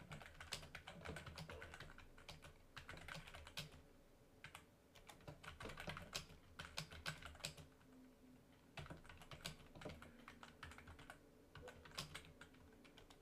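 Faint typing on a computer keyboard: quick runs of keystrokes with short pauses between words and phrases.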